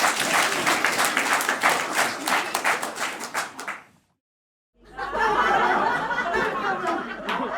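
Audience applause with dense clapping, fading out about four seconds in. After a moment of silence a new crowd starts up, with many voices shouting and cheering over scattered clapping.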